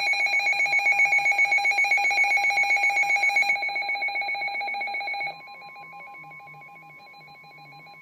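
Weather alert radio's electronic alarm going off for a severe thunderstorm warning: a loud, rapidly pulsing two-tone beeping that drops to a much lower level about five seconds in.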